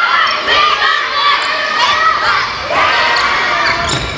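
Children shouting and calling to each other during a dodgeball game, with a dodgeball smacking once about four seconds in.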